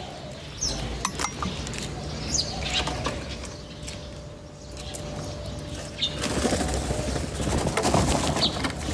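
Small birds chirping with short, high, scattered calls over a steady low hum. In the last few seconds a louder rustling noise comes in, like wings flapping.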